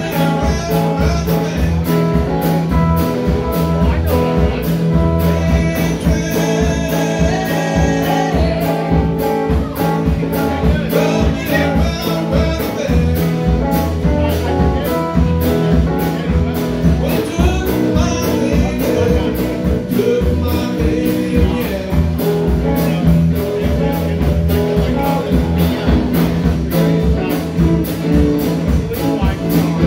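Live band playing: a woman singing over electric guitars, bass guitar and a drum kit with a steady beat.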